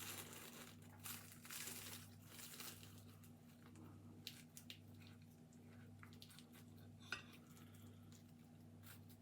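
Faint crackly scraping of a knife cutting through a flaky baked cheese and ham pastry over the first few seconds, then a few light clicks of the knife against the plate, over a low steady hum.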